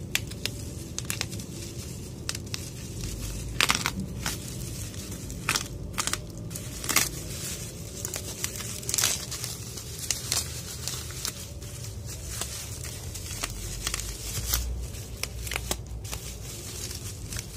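Plastic bubble wrap crinkling and tearing as it is pulled open and stripped off an exhaust muffler, with irregular sharp crackles and snaps.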